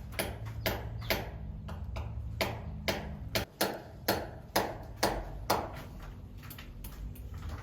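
Repeated sharp knocks or taps, about two a second, over a steady low hum; they thin out near the end.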